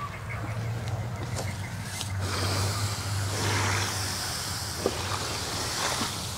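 An engine running with a steady low hum, with a louder rush of noise swelling about two seconds in and easing off by the middle.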